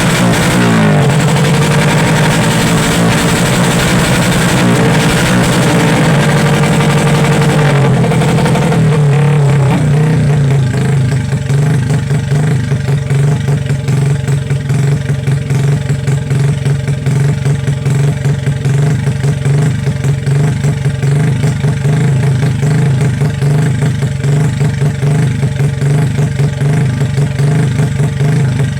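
Truck engine and exhaust running at raised revs, the pitch dropping briefly about a second in, then falling back to a steady idle with an even, rapid pulsing exhaust beat from about nine seconds in.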